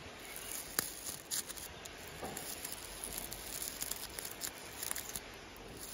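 Dry, papery bracts of a strawflower crackling as fingers rub them: faint, scattered crisp clicks.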